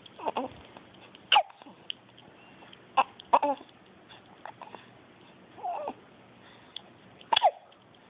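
Baby hiccupping: a handful of short, sharp hiccups, each with a quick falling squeak, with brief fussy baby squeaks between them.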